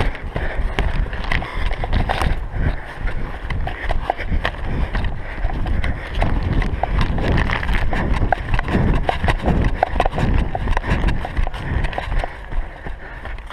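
A runner's footsteps on grass and path, with the plastic map bag crinkling and clicking in his hands and wind rumbling on the body-worn camera's microphone.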